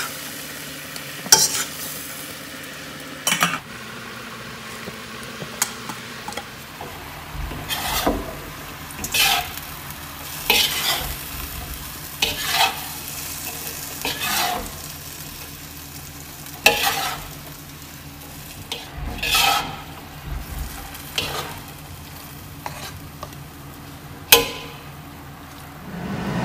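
Noodles, pork and cabbage stir-frying in a wok: a steady sizzle, broken every second or two by a wooden spatula and a metal turner scraping and knocking against the pan as the food is tossed.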